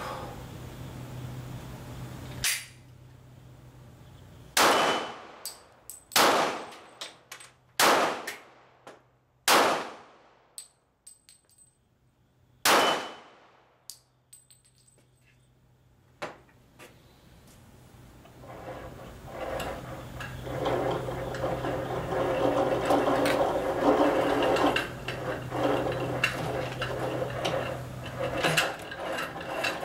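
Five pistol shots from a Gen 4 Glock 23 (.40 S&W), the first four about a second and a half apart and the fifth after a longer pause, each ringing out briefly. From about two-thirds of the way in, a steady mechanical whirring builds and runs on.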